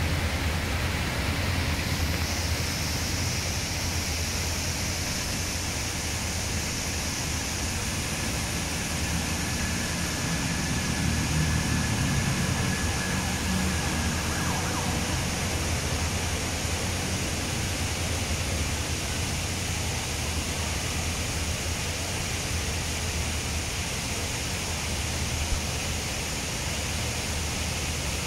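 Steady rushing noise with a constant low hum; a faint high tone is held for several seconds around the middle.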